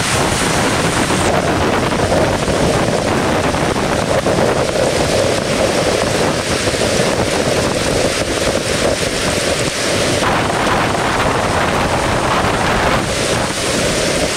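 Very loud, steady din of a supercell thunderstorm: violent wind and hail pounding down, a dense rush of countless hailstone impacts with wind buffeting the microphone.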